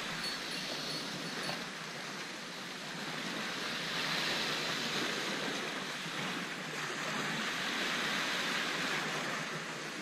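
Small surf washing onto a sandy beach: a steady hiss of breaking waves that swells a little a couple of times.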